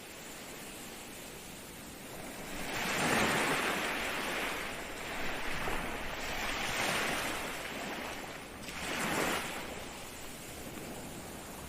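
Ocean surf: waves breaking and washing in, swelling up three times, about three seconds in, in the middle, and around nine seconds, then falling back to a steady hiss.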